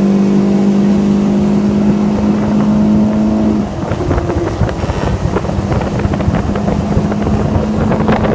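Evinrude outboard motor running steadily at speed, then throttled back about three and a half seconds in. Its even note gives way to a jumble of irregular clicks and knocks.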